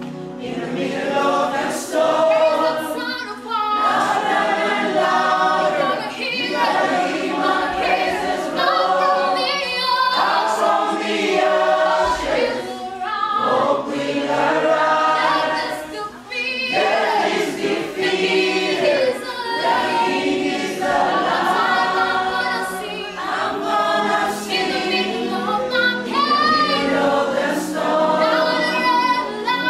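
A choir singing a church song, voices held in long wavering notes with short breaks between phrases.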